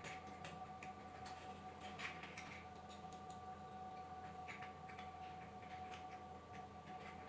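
Small metal parts of a mini woodturning machine kit clicking and scraping as a part is worked into its slot, in light, irregular ticks. A faint steady tone runs underneath.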